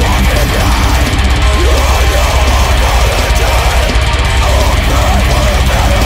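Loud blackened metalcore: dense distorted guitars over programmed drums, played without a break.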